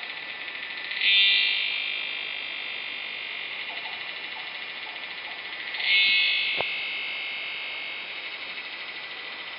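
A penetrating, metallic insect drone in the forest, which the recordist presumes is a cicada-like insect and took at first for a sawmill. The buzz runs on steadily, surging sharply louder about a second in and again about six seconds in, and easing back after each surge.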